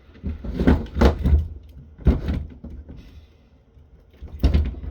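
Clunks, knocks and plastic rattling from a battery backup unit's parts being handled and tugged while working a stuck locking battery connector. The sounds come in three clusters: during the first second and a half, near two seconds in, and near the end.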